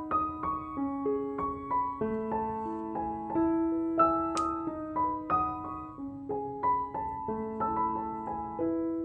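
Background piano music: a gentle melody of single struck notes over held lower notes. One sharp click sounds about four seconds in.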